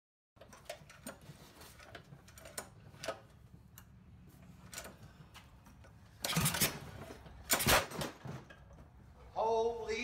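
Small single-cylinder Predator 224 engine being pull-started: the recoil starter rope is yanked twice, about a second apart, the engine turning over briefly without catching, a hard start. Before the pulls there are light clicks of handling, and a short voice-like sound comes near the end.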